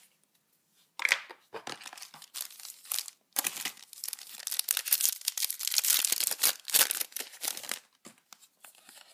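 A Yu-Gi-Oh! booster pack's foil wrapper being crinkled and torn open by hand. It starts about a second in, is busiest through the middle and stops about a second before the end.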